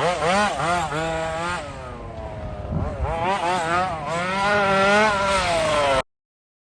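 Petrol RC car's small two-stroke engine revving up and down in repeated blips, with a lower-revving lull in the middle. The sound cuts off abruptly about six seconds in.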